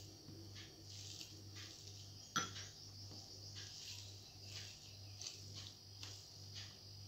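Fingers mixing rice with fried greens on a metal plate: soft, faint squishing and scraping strokes about two a second, with one sharp click against the plate about two and a half seconds in.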